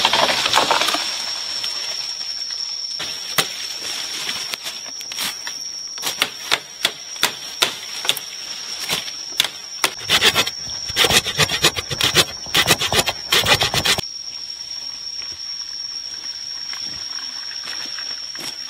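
Machete strikes on a green bamboo pole: a run of sharp knocks, sparse at first and then coming fast for several seconds, cutting off suddenly. A steady high-pitched tone sounds throughout.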